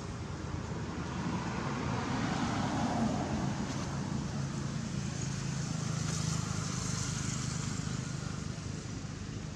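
Motor vehicle engine running with a low, steady hum that swells a couple of seconds in and again in the middle.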